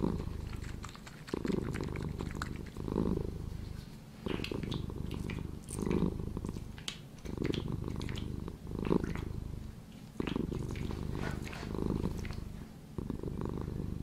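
Domestic cat purring in a steady rhythm, swelling and easing with each breath about every second and a half, with faint short high ticks over it.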